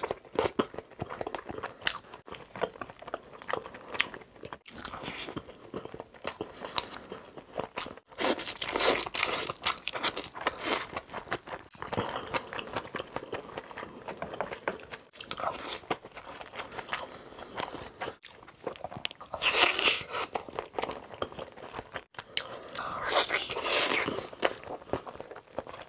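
Close-miked ASMR eating sounds: a man chewing and biting into a breakfast of Spam, fried eggs, rice and kimchi, wet chewing with crunchy bites, louder in a few spells. The sound cuts out abruptly for an instant every few seconds.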